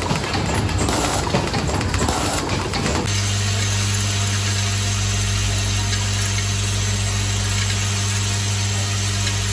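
Vibratory bowl feeders of a screw-feeding unit running: a steady, unchanging low electric hum with overtones. It sets in about three seconds in, after a stretch of busier, irregular sound.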